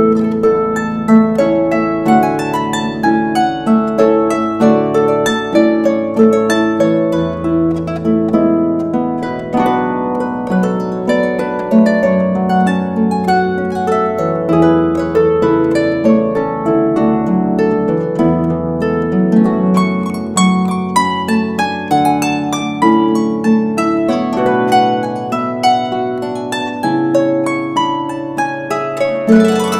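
Lever harp played solo: a plucked melody with chords, the notes ringing on over held bass notes.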